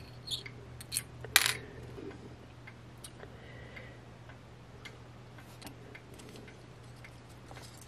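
Faint small clicks and ticks as fine wire and a small wooden winding jig are handled, with a few sharper clicks in the first second and a half and only scattered ticks after, over a steady low hum.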